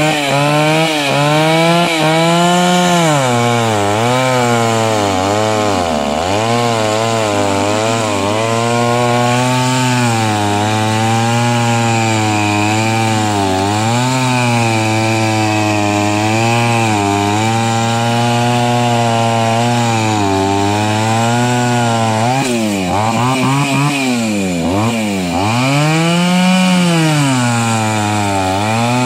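Two-stroke chainsaw running at high revs while cutting through a log. Its engine pitch sags under load and picks back up again and again, with several deeper dips near the end.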